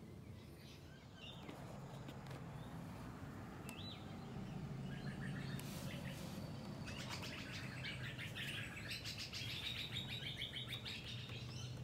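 Small birds chirping and twittering, busier in the second half, over a low steady hum.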